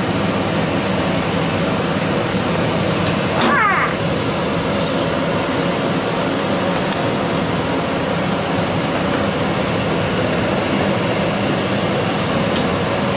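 Kitchen extractor hood fan running, a loud, steady rush with a faint hum, drawing off smoke from the oven. One short squeak about three and a half seconds in.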